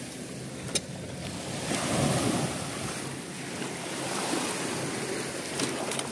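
Small waves washing onto a sandy beach, rising and falling every couple of seconds, with wind on the microphone. A sharp click about a second in and a few more near the end.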